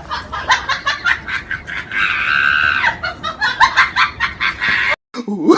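Ringtone of rapid chicken clucking with one drawn-out squawk, cutting off abruptly about five seconds in.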